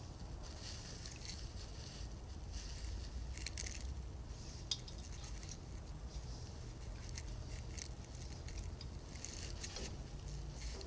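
1/4-20 hand tap being turned in a drilled steel plate, cutting threads with faint, short scraping sounds every second or so over a low steady hum.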